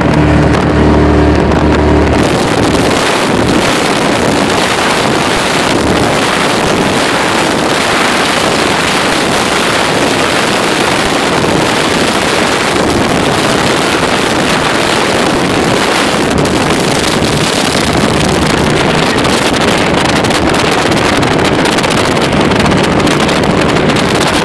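Baja 272 powerboat running at speed: a steady engine drone under a heavy rush of wind on the microphone and water. The engine hum is plain for about the first two seconds, then the wind and water noise mostly covers it.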